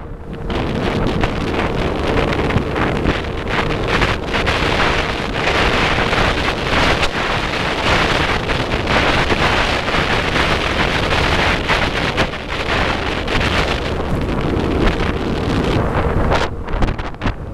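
Wind buffeting the microphone in gusts over the steady rush of a motorboat running at speed on the water, its engine a faint steady hum underneath.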